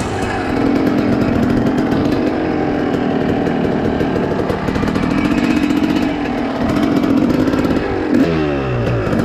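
Dirt bike engine running under way, its note holding fairly steady, then the revs dropping near the end.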